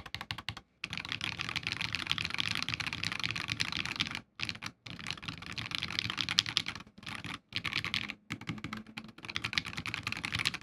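Fast typing on a Fusion60 60% mechanical keyboard with FFFF switches lubed with Krytox 205G0 and filmed, under Infinikey Aether keycaps: a dense stream of keystrokes in runs of a few seconds, broken by several short pauses.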